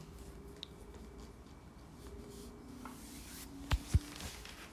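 Quiet room tone with a faint steady hum, and two sharp knocks in quick succession about three-quarters of the way through.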